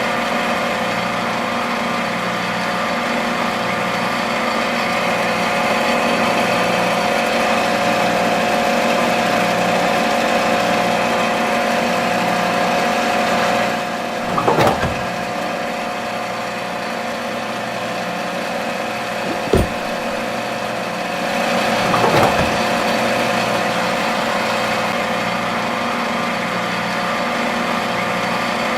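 A motor running with a steady, even hum, with a few short knocks or clatters: one about halfway through, a sharp click a few seconds later, and another a little after that.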